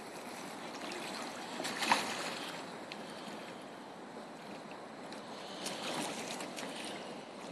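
Seawater washing steadily below a pier, with faint splashes from a hooked tiger shark thrashing at the surface, a louder one about two seconds in.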